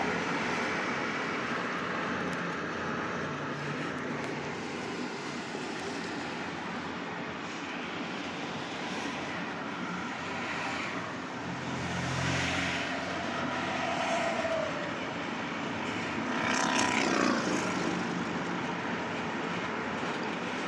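Steady freeway traffic and road noise, with vehicles swelling past. The loudest pass comes about seventeen seconds in and drops in pitch as it goes by.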